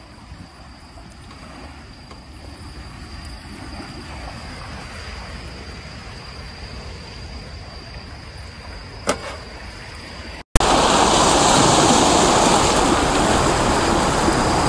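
A faint steady hiss with one click about nine seconds in. After a sudden cut comes the much louder, steady rushing wash of sea waves on a pebble shore.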